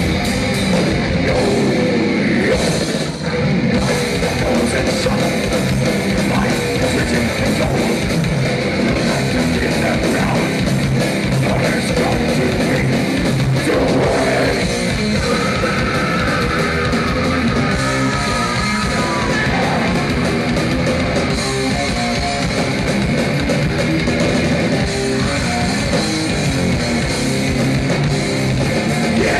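Death metal band playing live: distorted electric guitars and a drum kit, loud and dense, heard from the crowd in a club. About halfway through, a high note is held for a few seconds.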